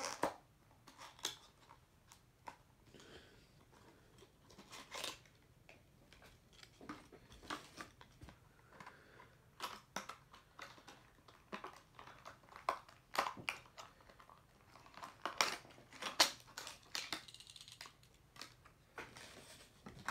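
Packaging of a boxed NASCAR diecast car being opened by hand: irregular crinkling, tearing and clicking of cardboard and plastic.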